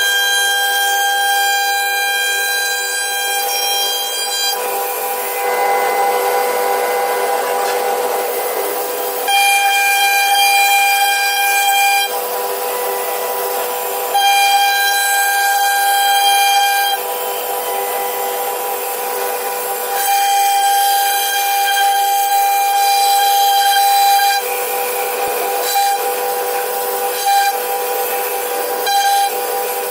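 CNC wood router spindle running with a steady high-pitched whine. The whine drops out and returns every few seconds, and a rough hissing noise of cutting fills the stretches in between.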